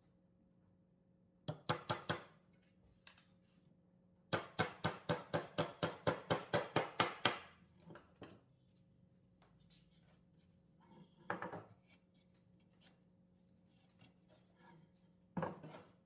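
Small hand hammer driving nails into pine boards. Four quick taps, then a fast run of about fourteen strikes over three seconds, with a few more knocks later.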